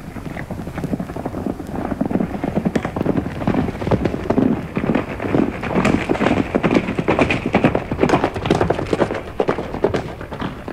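Sound effect of a horse galloping: a fast, irregular patter of hoofbeats that grows louder over the first few seconds and eases off near the end, leading into the song.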